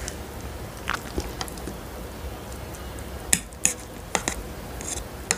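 Metal fork stirring and twirling cooked instant noodles on a plate, with scattered light clicks and scrapes of the fork against the plate, a few sharper ones past the middle.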